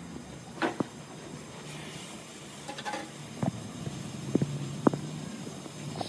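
Scattered short knocks and clicks, about seven of them, with the loudest near the end, over a steady low hum.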